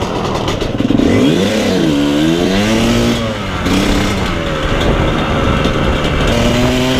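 Kawasaki two-stroke dirt bike engine under way, revving up about a second in, dropping back a couple of seconds later, then climbing slowly in pitch under steady throttle.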